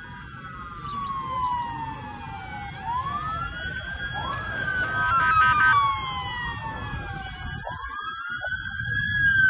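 Several emergency-vehicle sirens wailing at once, their pitches slowly rising and falling and overlapping, with a choppier stepped siren tone joining around the middle, over a low background rumble.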